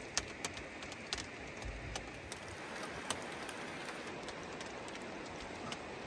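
Steady rain hiss, with scattered sharp ticks of drops landing close by, a dozen or so over a few seconds.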